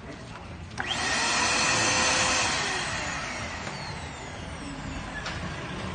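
Fujihama vacuum cleaner switched on about a second in, its motor running with a loud rush of air and a steady whine.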